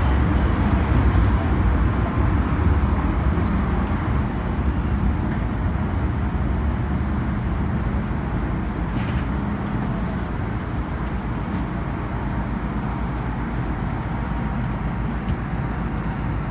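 MTR M-Train electric multiple unit heard from inside the carriage, slowing into an underground station, its low running noise gradually easing as it comes to a stand.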